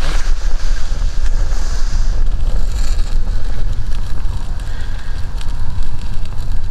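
Wind buffeting the microphone, a loud, steady low rumble, with a few faint clicks over it.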